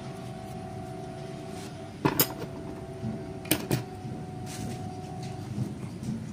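Small hard objects clinking as they are handled: a pair of sharp clicks about two seconds in and another pair about a second and a half later, over a steady hum.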